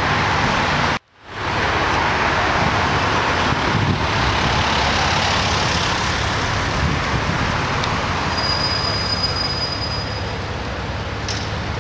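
Road traffic passing close by: a steady rush of tyre and engine noise from cars and a van. The sound cuts out briefly about a second in, and a thin high whine is heard for a couple of seconds near the end.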